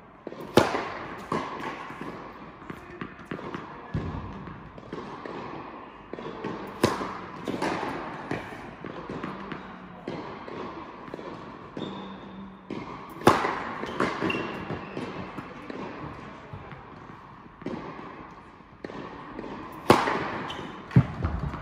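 Tennis ball struck hard by a racket, four hits about six and a half seconds apart, each ringing on in the hall's echo, with lighter knocks of returns and ball bounces between.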